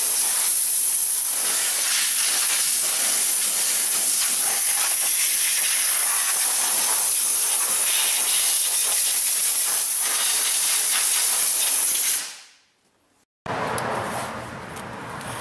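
Compressed-air blow gun hissing steadily as it blasts old coolant residue and dirt off the engine's belt pulleys. It fades out about twelve seconds in. After a short silence there is some light clatter.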